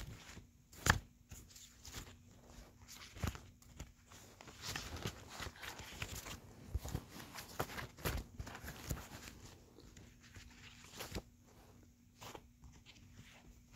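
Scattered knocks, taps and rustles of things being handled and moved about, the sharpest knock about a second in, over a faint steady hum.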